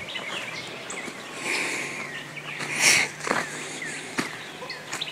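Woodland ambience: short falling bird chirps, with a few sharp snaps in the brush and a brief louder rustle about three seconds in.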